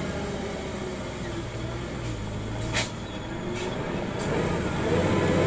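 Heavy truck's diesel engine labouring up a steep incline, its pitch slowly rising and falling and getting louder toward the end, with one sharp click about halfway through.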